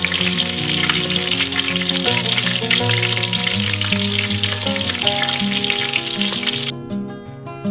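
Shrimp in thin pastry wrappers deep-frying in a pot of hot oil: a dense, steady crackling sizzle that cuts off suddenly about a second before the end, leaving only background music.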